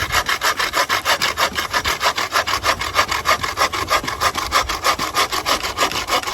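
Small folding hand saw cutting through a branch with quick, even back-and-forth strokes, several a second.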